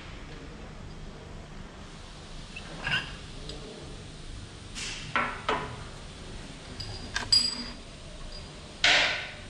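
Rubber scooter drive belts and a spray can being handled on a workbench: a few scattered knocks and rattles over a low steady hum, the loudest near the end.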